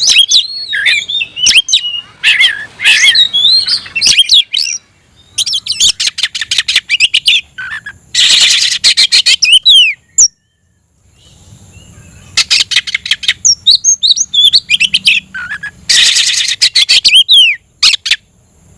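Oriental magpie-robin (kacer) singing loud, varied phrases of whistled glides and fast runs of repeated notes, with a short silent pause about ten seconds in. This is its territorial, rival-challenging song.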